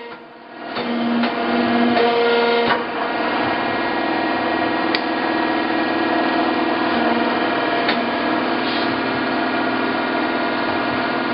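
DiAcro Hydra-Mechanical press brake with its 3 hp motor running, a steady hum that comes up about a second in, with a few sharp clicks along the way.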